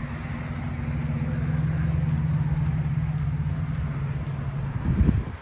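A motor vehicle's engine drones steadily nearby, swelling and then fading. A brief low thump comes just before the end.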